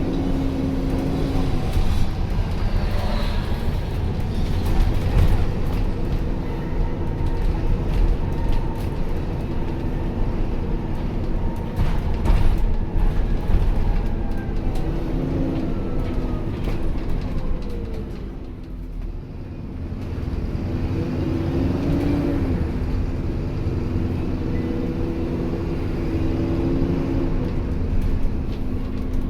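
The diesel engine and running gear of an Alexander Dennis Enviro400 Trident double-decker bus, heard from inside the bus as it moves: a steady low rumble, with the engine note rising and falling a few times as the bus pulls away and changes gear. It goes briefly quieter a little past halfway.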